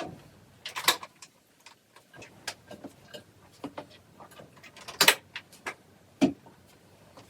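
Scattered light clicks, taps and knocks of small household objects being handled, irregular, with louder knocks about a second in, about five seconds in and just after six seconds.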